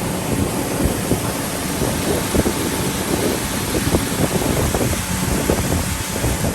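A vehicle's motor running, buried under heavy wind buffeting the microphone.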